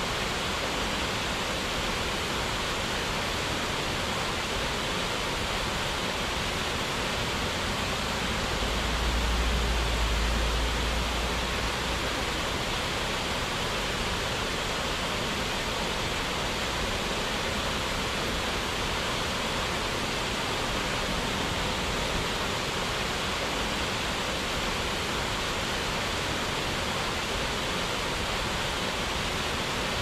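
Steady rushing of a waterfall, an even hiss with no let-up. About nine seconds in, a low rumble swells for two or three seconds and fades.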